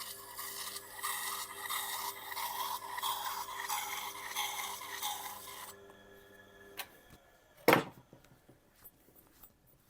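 A knife edge being stropped on a spinning kangaroo-tail leather wheel on a Tormek T8: a rough rubbing rasp over the sharpener motor's steady hum. The rubbing stops about six seconds in and the hum dies a second later. A single sharp knock follows, the loudest sound here, with a few faint ticks after it.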